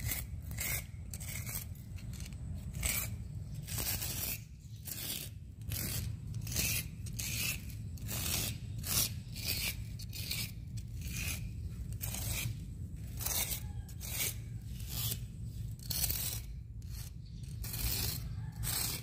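Hacksaw blade scraping old grout out of the joints between swimming-pool tiles in short, even strokes, about two a second. The joints are being raked out and cleaned so that the new grout will hold.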